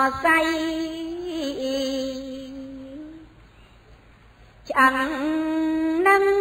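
A woman chanting Khmer smot, Buddhist chanted verse, in long held, wavering notes; she breaks off about three seconds in and starts a new line about a second and a half later.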